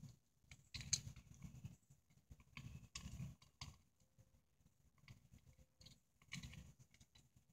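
Puppies eating dry puppy kibble from a shared bowl: faint crunching, chewing and bowl clicks in short spells, about a second in, around three seconds in and near the end.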